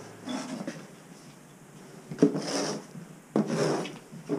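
A plastic snow shovel scraping across a concrete floor in two sudden strokes about a second apart, pushing wet sewage muck.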